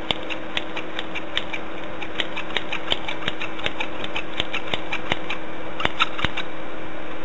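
A small machine runs with a steady hum and irregular sharp clicks while eye holes are cut in cloth.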